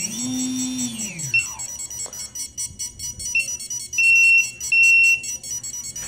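Electronic beeping from the ESCs of a quadcopter's brushless motors: repeating tones that swell and fade about once a second, stopping about a second and a half in, then a few short high beeps, two longer ones near the end. This constant beeping is the sign that the ESCs on two of the motors won't arm or spin.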